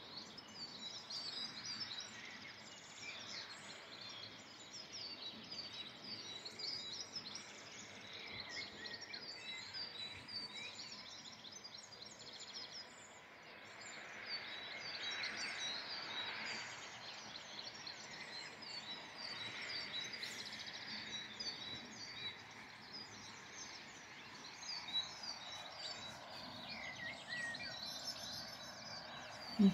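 Many small songbirds chirping and singing over a steady background rush of outdoor noise, with a brief knock right at the end.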